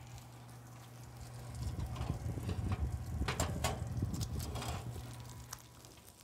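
Freshly baked pizzas sizzling and crackling on hot trays just out of the oven, over a steady low hum. From about a second and a half in, a louder low rumble with a few sharp clicks from the trays being handled, fading near the end.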